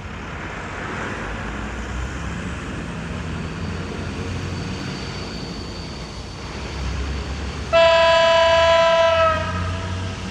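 SU45 diesel locomotive approaching, its engine running with a steady low sound that grows louder. Near the end it sounds its horn: one loud blast of about a second and a half, with the pitch sagging slightly as it stops.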